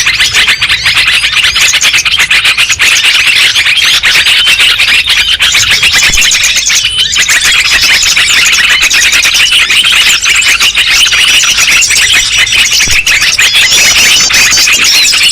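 A dense, loud chorus of many small birds calling at once, with rapid overlapping high-pitched chirps and trills that never let up. It is a 'suara burung ribut' lure recording of noisy birds, used to attract small birds for catching.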